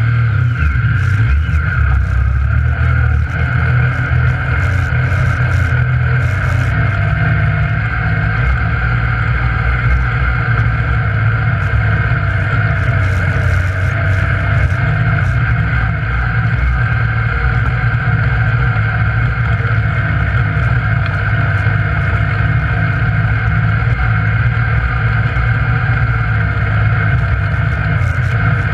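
Yamaha YXZ1000R side-by-side's three-cylinder engine running steadily without big revs, heard from inside the open cab.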